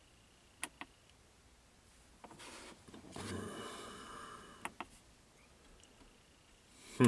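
Scattered sharp clicks of buttons being pressed while a zone number is keyed into a DMR mobile radio: a pair early on, another pair later, and the loudest just before the end. In the middle there is a soft, noisy rustle.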